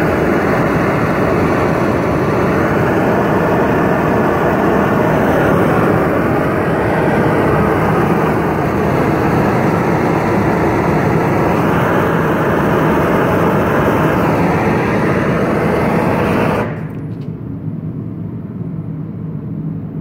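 Gas torch flame burning steadily against a bronze bust, heating the metal for a hot patina. It cuts off sharply about sixteen seconds in.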